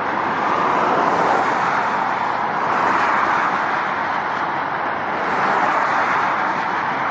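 Road traffic noise from cars driving along a multi-lane dual carriageway: a steady noise that swells a little a few times as cars pass.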